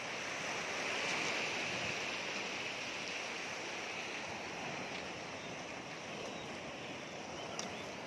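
Sea waves washing against a rocky shoreline: a steady rush that swells about a second in and then slowly eases.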